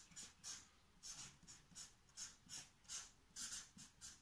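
Marker pen writing letters on a flip chart: a run of short, faint strokes, about three a second.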